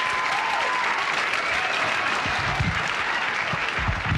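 Studio audience applauding, with a few whistles early on. In the second half there are low thumps of the microphone being handled at its stand.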